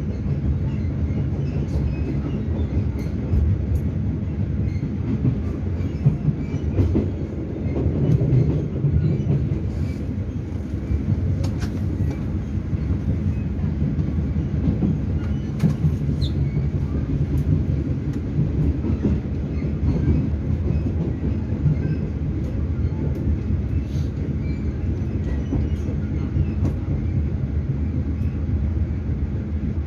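Steady low rumble of a folding-door Chu-Kuang express passenger coach running along the rails, heard from inside the car, with faint scattered clicks and rattles.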